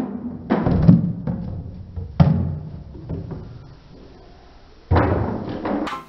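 Hollow cardboard alphabet stacking blocks tumbling down and being knocked about by a plastic toy monster truck: a series of dull thuds, about a second in, again at about two seconds, and near the end.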